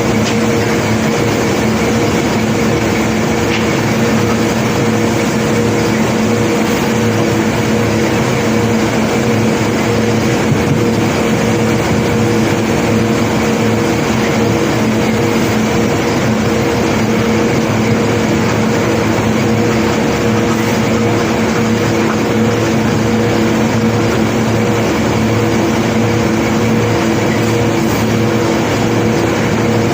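Heavy unloading machinery running steadily, a continuous droning hum with no distinct knocks or clatter.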